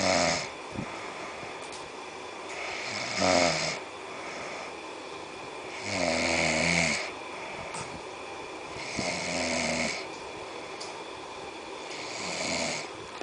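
A person snoring, five snores about three seconds apart, each lasting about a second.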